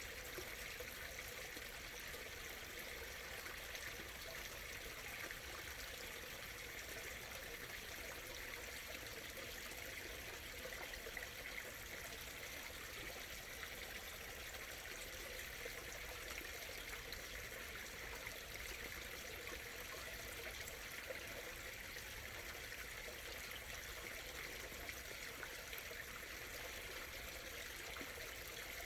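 A small stream murmuring and trickling over stones, a steady unbroken flow of water.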